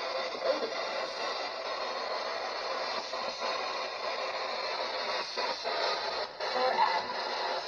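Spirit box, a radio rapidly sweeping through stations, putting out steady hissing static that chops briefly several times, with short louder fragments breaking through.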